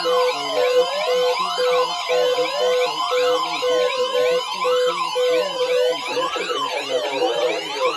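Layered electronic alert alarm: fast, repeating high rising chirps over slower wailing siren sweeps that rise and fall, with a fast beeping tone underneath. About six seconds in the beeping stops and more sweeps pile in. It is the warning alarm of a mock weather-radio emergency alert test.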